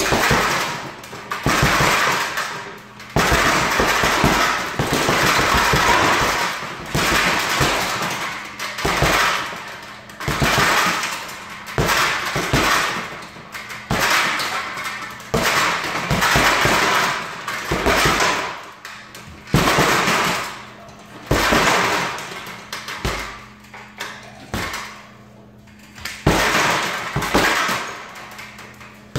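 Gloved fists punching an Everlast heavy bag in quick combinations: bursts of sharp smacks every second or two.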